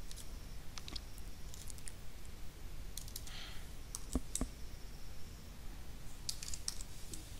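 Computer keyboard keys clicking in short, irregular clusters as a command is typed.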